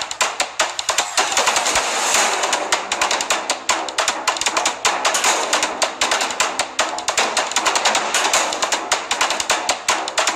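Background music driven by a fast, dense drum beat.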